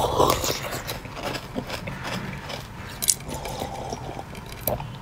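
Teeth biting and crunching into a frozen ice block: irregular crisp cracks and crackles close to the mouth, with a louder crack about three seconds in.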